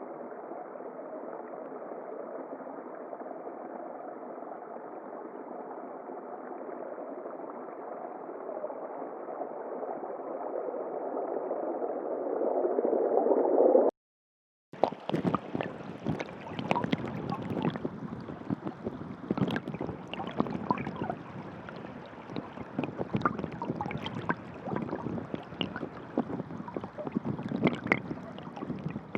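Two underwater water-sound effects. First a muffled, even rush of water that grows louder and then cuts off suddenly. After a brief gap comes a crackling, bubbling underwater noise full of small clicks and pops.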